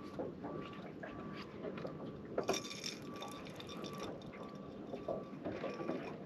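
Small water splashes and drips with light clicks of handling. Underneath, a faint short beep repeats evenly, about every two-thirds of a second.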